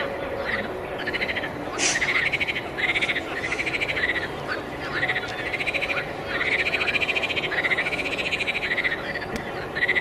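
A chorus of frogs calling from a pond: rapid pulsed trills, each lasting half a second to a second and a half and rising then falling slightly in pitch, one after another and overlapping.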